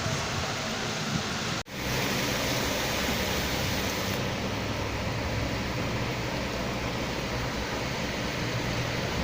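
Steady rain falling, an even hiss with a low rumble underneath. The sound cuts out for an instant about a second and a half in.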